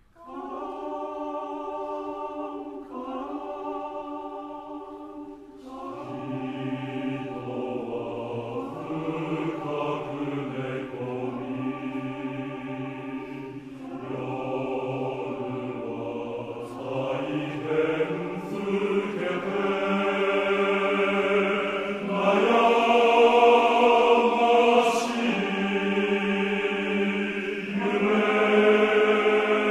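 Men's choir singing unaccompanied. The upper voices enter out of a silence, the basses join about six seconds in, and the singing grows louder toward the end.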